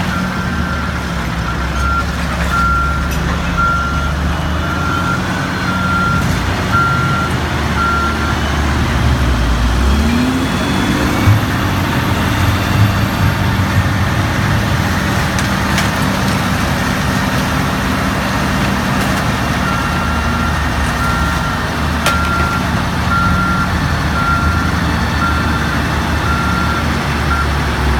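Semi truck's diesel engine running steadily while its hydraulic hoist raises a half-round end-dump trailer body; about a third of the way in the engine speeds up and holds there. A backup alarm beeps steadily early on and again near the end.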